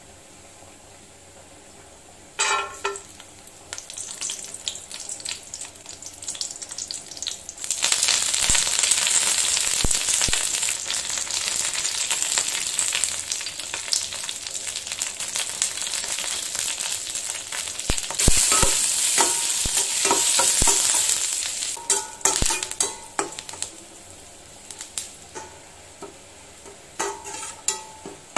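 Cashews, curry leaves, dried red chilli and peppercorns frying in hot ghee in a stainless steel pan. A short clatter a couple of seconds in, then a loud, dense sizzle that swells again about two-thirds of the way through and dies down near the end, with a few light clicks.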